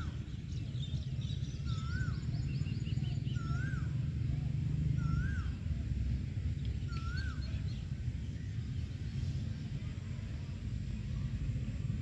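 Outdoor animal calls: a short whistled call that rises and then falls, repeated five times at intervals of about one and a half to two seconds and stopping about seven seconds in, with faint higher chirps in between, over a steady low rumble.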